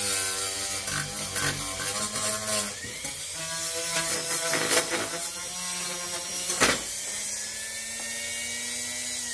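Corded rotary motor tool with a small wire brush running against a metal license plate: a steady motor whine with scraping and a few sharp clicks. Near the end the tool is lifted off and its whine rises slightly as it spins free.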